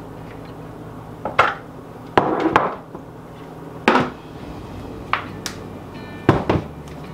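Plastic mixer bowl and metal dough hook of a Bosch stand mixer knocking and clattering as the bowl of risen bread dough is lifted and handled: about six sharp knocks, two of them close together near the end.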